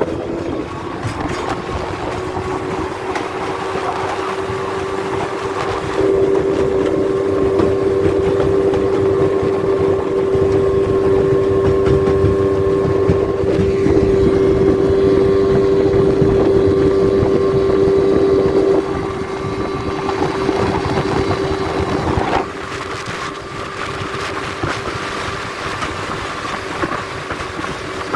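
Outboard motor driving a small aluminum jon boat at a steady cruising speed: a constant hum, with wind and water rushing past. It is louder for a stretch of about twelve seconds in the middle.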